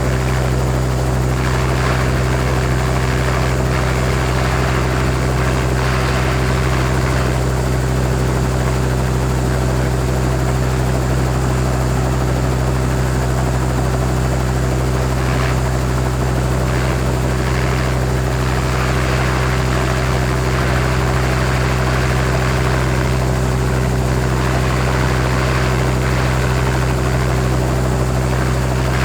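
Helicopter idling on the ground: a steady low hum from the engine and rotor with a constant rushing noise above it, unchanging throughout.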